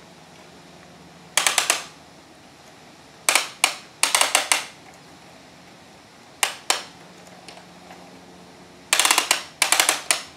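Bruder toy crane's plastic hand-crank winch clicking as it is turned to hoist a load. About five bursts of quick sharp clicks come with pauses of a second or two between them.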